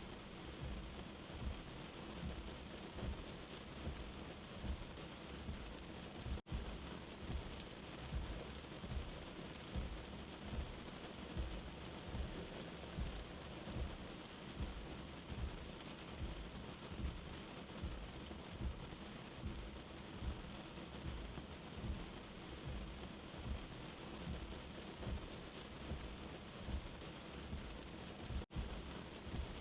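Steady rain falling, with a low rumble of thunder beneath it that swells a little more than once a second. The sound cuts out for an instant twice.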